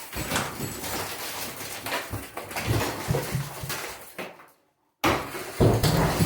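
Pickaxe striking concrete again and again, a few blows a second, with chunks cracking off and clattering down, echoing in a small room. The sound cuts out completely for about half a second a little past four seconds in, then the blows resume.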